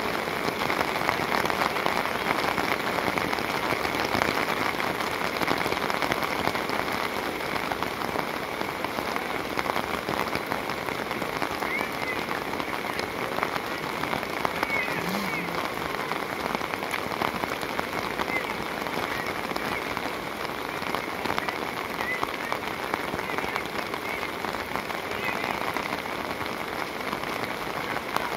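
Steady rain, with close drops pattering on a fabric umbrella.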